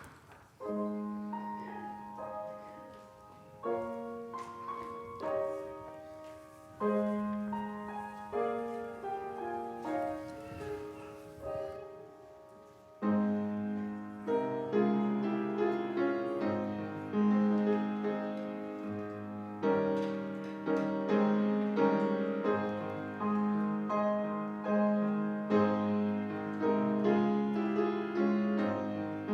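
Solo piano playing a slow, gentle offertory piece: sparse notes at first, becoming fuller and louder with a bass line from about halfway through.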